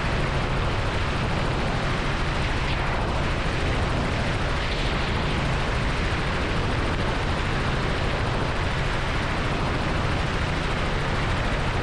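Steady drone of a Robinson R44 helicopter in flight, its rotor and piston engine heard from inside the cockpit, with a strong low rumble under an even rushing noise.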